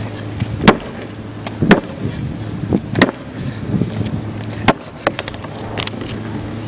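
A molded urethane-polymer motorcycle bagger part being struck hard, repeatedly, in a durability test: four loud hits and a couple of lighter ones, irregularly spaced about a second apart. A steady low hum runs underneath.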